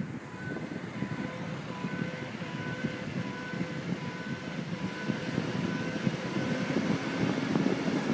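A 2002 Ford Sport Trac 4x4 on the move, with road noise and a hum from the front driver-side wheel area growing louder as the truck gathers speed.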